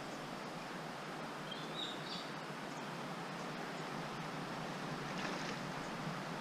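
Steady outdoor hiss of a flowing river, with a short high bird chirp about two seconds in.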